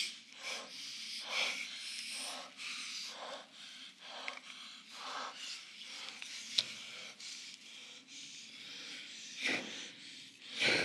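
A person breathing heavily and unevenly, with short hissy breaths about once a second. A single sharp click comes about six and a half seconds in.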